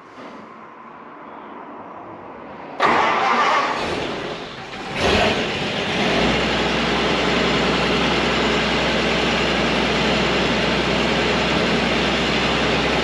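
WW2 carrier's engine starting about three seconds in, surging twice, then settling into a steady run. Freshly serviced with an oil change and new plugs, it runs sweet.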